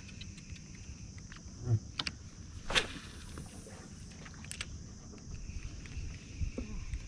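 Quiet ambience aboard a small fishing boat: a steady low rumble and a steady high hiss, with a few light knocks. There is one short, loud rushing noise about three seconds in.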